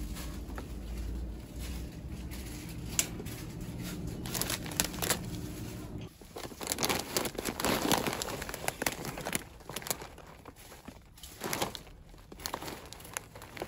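Plastic grocery packaging and bags crinkling and rustling as items are handled, in bursts from about six seconds in and again near the end. Before that there is a low steady hum with a few light clicks.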